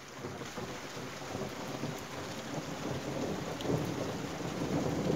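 Rain falling steadily during a thunderstorm, with thunder rumbling underneath that grows louder toward the end.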